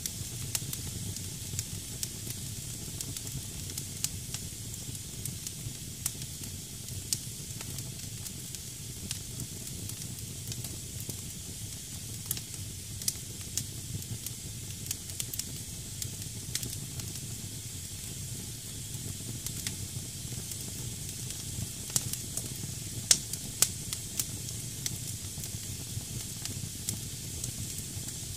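Wood fire burning in a fireplace: damp logs hissing steadily, with frequent small crackles and a few louder pops about three quarters of the way through.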